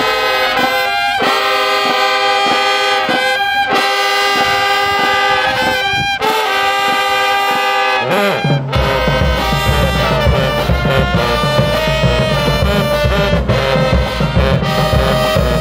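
A high school marching band playing in the stands. It opens with sustained brass chords broken by short cut-offs; about eight and a half seconds in, the drums and low brass come in with a steady driving beat under the horns.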